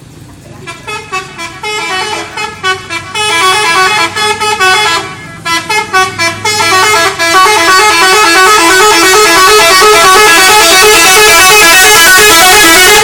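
Bus's multi-tone 'telolet' musical horn playing a fast, stepping tune. It starts as short separate toots, then plays unbroken for the last five seconds or so and stops sharply.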